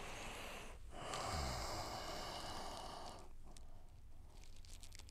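A man breathing out audibly while held in a deep forward spinal stretch: a short breath, then a louder, longer breath of about two seconds starting about a second in.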